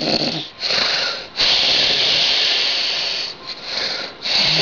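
A woman snoring loudly in her sleep: a run of harsh, wheezing breaths with brief pauses between them. She has a sleep disorder and is without the mask that normally keeps her from snoring.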